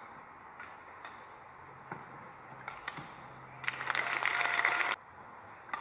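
Badminton rally: sharp racket-on-shuttlecock hits about once a second. Then, about three and a half seconds in, a loud burst of crowd cheering and applause for about a second as the point is won, cut off suddenly.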